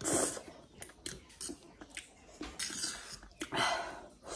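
Close-up eating sounds: a metal fork and spoon clicking against a plate, with chewing. Two short, louder hissing rushes, one right at the start and one near the end.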